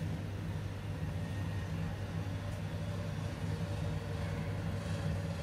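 Steady low hum of background noise, even throughout with no clicks or claps.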